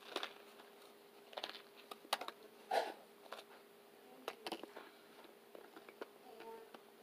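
A person biting and chewing a crunchy Cheetos-topped burger, heard as faint scattered crunches and clicks, with one louder crunch about three seconds in.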